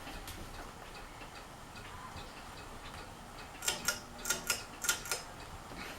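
Fasco Charleston ceiling fan running on low speed with a steady light ticking. A cluster of louder sharp clicks comes a little past the middle.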